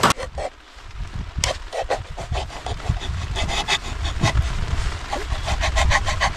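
Can opener cutting around the lid of a tin of sweetcorn: a quick run of rhythmic rasping strokes, about five a second, that stops abruptly at the end.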